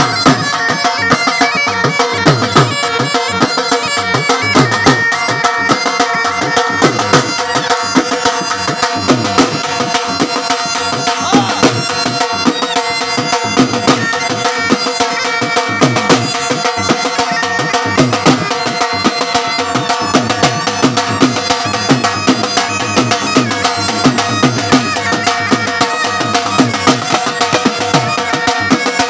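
Bagpipes playing a folk tune over their steady drones, with a dhol drum beating the rhythm underneath.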